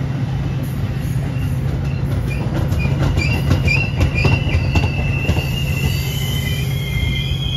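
Metra stainless-steel bilevel passenger cars rolling past with a steady low rumble. The wheels click over the rail joints and squeal in a high, wavering tone that turns steadier and louder near the end.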